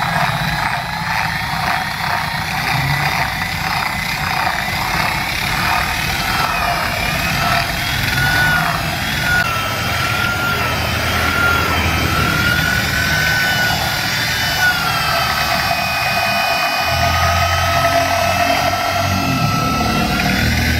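A corded electric drill with a metal whisk rod runs continuously, whipping egg tea in a glass until it froths. The motor's whine wavers slightly in pitch as the speed shifts.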